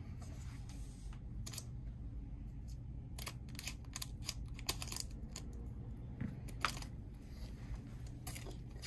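Scattered light taps and rustles of foil trading-card booster packs being picked up and handled, a short click every second or so, over a low steady hum.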